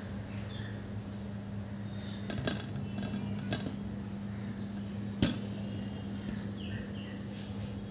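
A steady low hum, with a few sharp clicks, the loudest about five seconds in, and faint high chirps.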